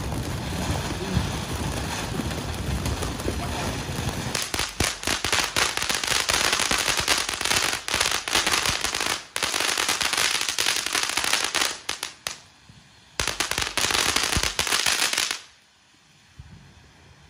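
A ground fountain firework spraying sparks with a rushing hiss. About four seconds in it breaks into loud, dense crackling, which drops out briefly twice and stops about fifteen seconds in, leaving a faint hiss as the spark spray dies down.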